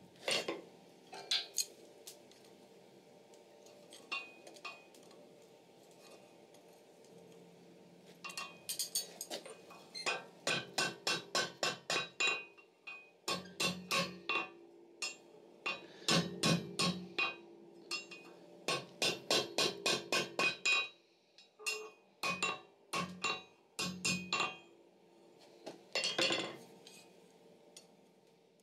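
Blacksmith's hammer striking red-hot steel bar over the anvil horn, bending and wrapping the crook's eye. A few scattered blows come first, then runs of quick strikes at about three a second with the anvil ringing, in several bursts separated by short pauses.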